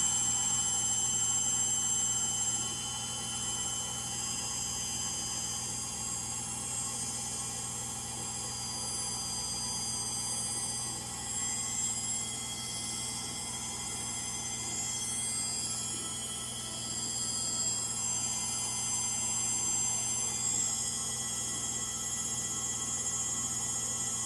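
Frigidaire Gallery front-load washer (model GLTF1670AS1) in its final spin: a steady high-pitched whine over a low hum from the drive motor, whose bearings are bad.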